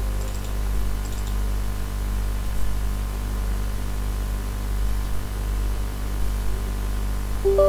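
Steady low electrical hum with an even hiss, mains hum and noise in the recording, with no other sound standing out.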